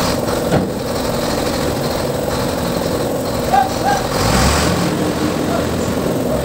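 An engine running steadily at idle, a constant drone, with a few light clicks about halfway through.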